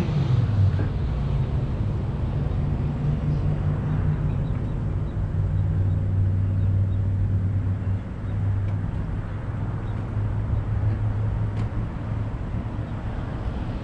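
A vehicle engine idling steadily while parked, a low even hum. It is left running to recharge the battery.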